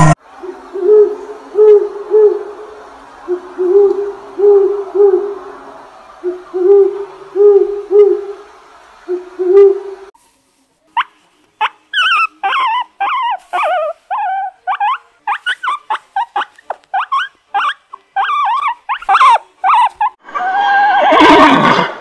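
Low hoots in runs of three or four, repeating every couple of seconds. About ten seconds in, they give way to a guinea pig's rapid high squeaks and wheeks. Near the end a horse neighs loudly.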